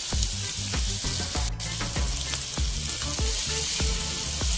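Stir-fry of diced eggplant, tomato and dried shrimp sizzling in a frying pan with a steady hiss, while a wooden spoon stirs and scrapes through it about three times a second.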